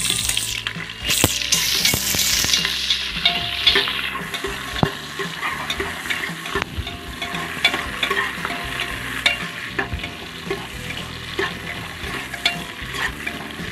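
Sliced onions sizzling in hot oil and ghee in a pressure cooker, loudest in the first few seconds after they go in and then settling to a steady fry. A spoon stirs them throughout, with frequent clicks and scrapes against the cooker.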